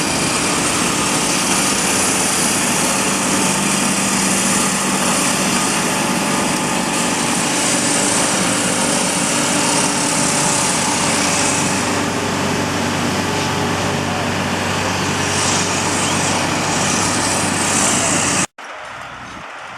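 JCB backhoe loader's engine running steadily with a constant low hum under a loud hiss. It cuts off abruptly about a second before the end, leaving a much quieter background.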